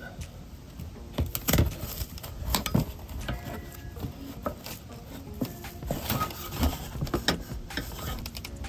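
Irregular metal clicks, taps and scrapes of hand tools and a steel wire fish tape working against a travel trailer's underbelly and frame, while feeling for the wire's entry hole. The loudest knocks come about a second and a half in, near three seconds and past six seconds.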